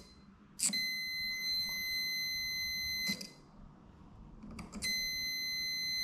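Megger tester's audible continuity signal giving a steady high beep twice, each about two and a half seconds long, starting with a click as the test lead makes contact. The beep means the circuit is continuous: the cable core being tested is joined through to the earth, which identifies that cable leg.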